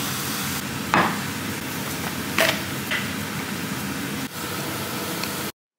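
Kitchen mixer tap running water into a cup, a steady hiss, with a few sharp clicks and knocks as a tube of tablets and the cup are handled. The sound cuts off suddenly near the end.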